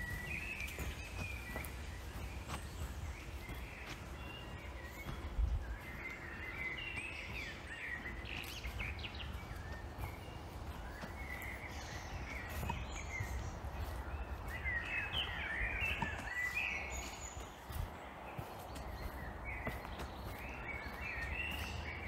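Woodland birds singing in spells of short chirps and trills, over a steady low rumble of walking on a soft earth forest path. A single low thump comes about five seconds in.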